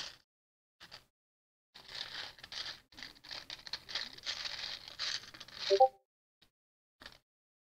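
Loose Lego bricks rattling and clattering as a hand rummages through them in a clear plastic box, with a few single clicks before and after. A short, sharp clink near the end is the loudest sound.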